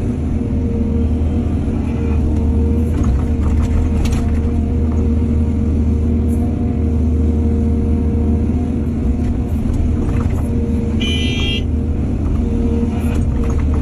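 Diesel engine of heavy earthmoving machinery running steadily with a low drone, with a few scattered knocks and a brief high-pitched squeal about eleven seconds in.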